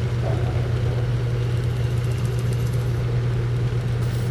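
A berthed ship's engine running steadily, giving an even low hum.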